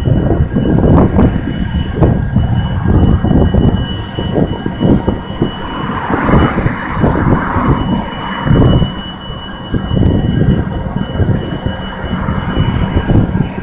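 CSX freight train's diesel locomotives running below, a loud, uneven low rumble, with a hissing patch about six to eight seconds in.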